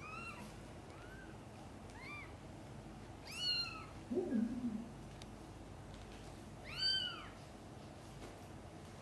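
Newborn kitten mewing: five short, high-pitched cries that rise and fall in pitch, the loudest two about three and a half and seven seconds in. Just after four seconds comes a brief lower sound that falls in pitch.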